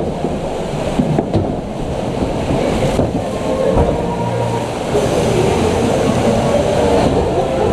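Splash Mountain log boat running through the flume: a steady, loud rumble and clatter of the ride mechanism and water.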